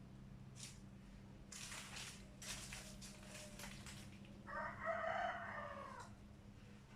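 An eight-month-old rooster crowing once, a call of about a second and a half that starts about halfway through. It is preceded by a few seconds of noisy rustling.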